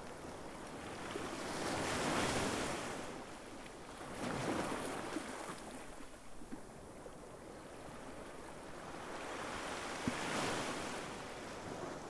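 Small sea waves breaking and washing up a beach, swelling and fading three times: about two seconds in, again near the middle, and near the end after a lull, with a few faint clicks.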